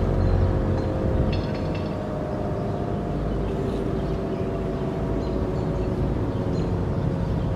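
Sentry Siren Inc. 15V2T dual-tone outdoor warning siren sounding a steady two-tone chord during its noon test.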